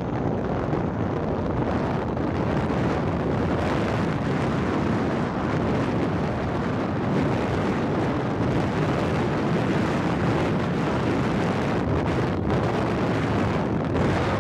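Steady wind buffeting the microphone on a moving motor scooter, a dense rush with no clear engine note above it.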